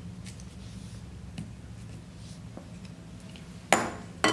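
Two sharp metallic clinks with a brief ring near the end, made by metal cake-decorating tools, a palette knife and a steel bench scraper, knocking as they are put down and picked up. Before them, a few faint taps over a low steady hum.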